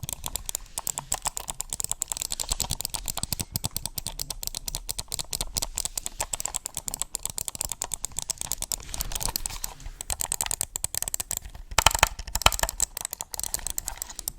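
Fast typing on a computer keyboard: a dense, continuous run of key clicks, with a louder flurry of strokes about twelve seconds in.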